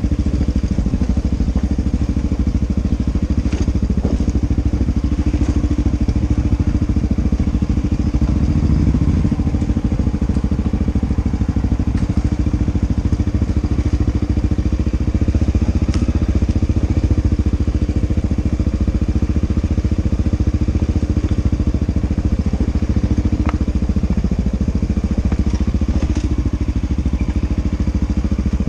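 Dirt bike engine running steadily at fairly low revs as the bike rides down a rocky trail, with a few sharp clicks and knocks from the bike over stones.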